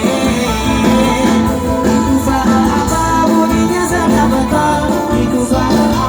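Loud music with a voice singing over a steady beat.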